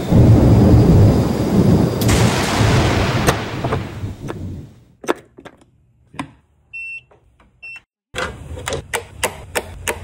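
A rumble of thunder with a sharp crack about two seconds in, fading away by the middle. Then come scattered clicks, two short high beeps and a run of quick clicks.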